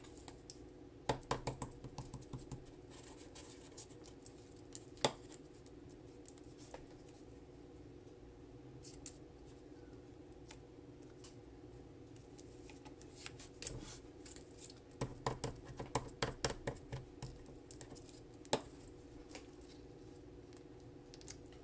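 Hands handling and pressing small punched paper circles onto card stock on a cutting mat: light taps, clicks and scratchy rustles in short clusters, about a second in and again for a few seconds past the middle, over a faint steady hum.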